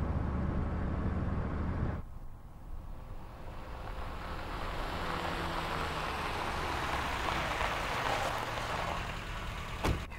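Car running, heard from inside as a steady low engine drone. About two seconds in the sound cuts to a rising noise that peaks near the end, followed by a few sharp clicks.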